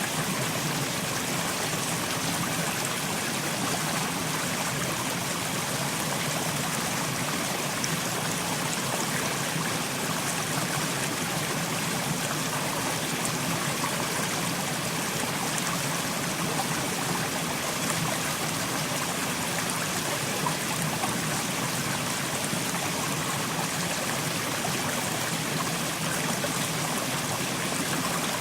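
Mountain stream running over rocks: a steady rush and babble of flowing water.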